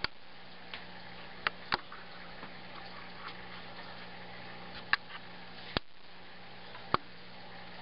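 A cat rooting in torn catnip packaging and paper: about six sharp clicks and crinkles, spaced irregularly, over a low steady hum.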